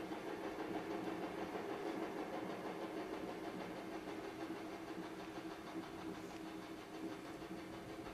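A steady, even drone with a low hum, like a machine or engine running, with no beat and no breaks.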